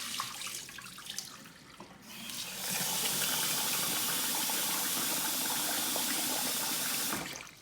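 Kitchen tap running water into a pot of jasmine rice being rinsed. First comes softer sloshing with small clicks. About two seconds in the tap runs full and steady for about five seconds, then shuts off shortly before the end.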